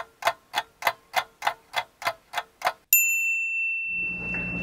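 Clock-ticking sound effect, about three ticks a second. About three seconds in it cuts off to a sudden steady high electronic beep that holds on, with a low hum and hiss coming in under it about a second later.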